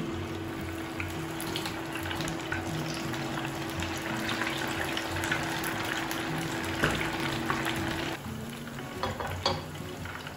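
Vegetable tempura fritters (kakiage) crackling and sizzling in hot oil during their second fry, with many small pops. The frying gets quieter about eight seconds in.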